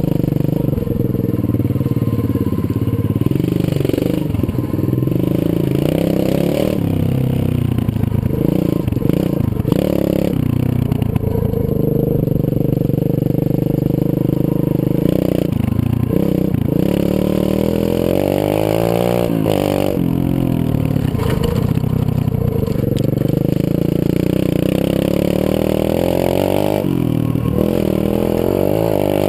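125cc Zongshen pit bike's single-cylinder four-stroke engine running hard while being ridden, its pitch rising and falling over and over with throttle and gear changes.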